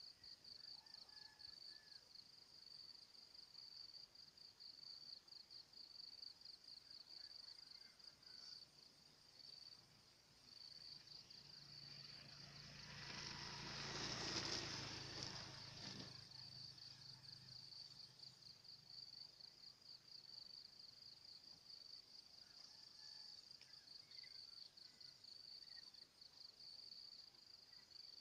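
Faint insects chirring in a steady, high, rapidly pulsing trill. About halfway through, a broad rush of noise with a low hum beneath it swells to a peak and fades over a few seconds.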